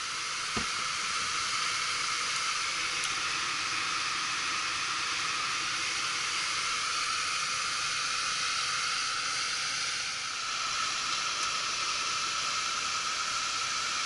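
Steady rushing hiss of an air handler's blower moving air with the cabinet door off, with a faint steady tone running through it. A single click comes about half a second in.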